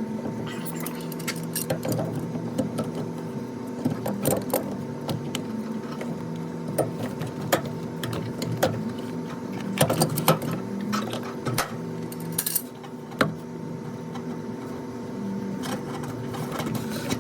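Clicks, knocks and clatter of a washing machine's drain pump and hose fittings being handled and fitted by hand, over a steady hum.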